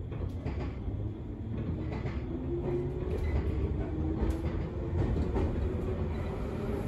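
Cabin of a JR East local electric train pulling away from a station: traction motors and wheels on the rails running with a steady low rumble that grows slowly louder as the train gathers speed.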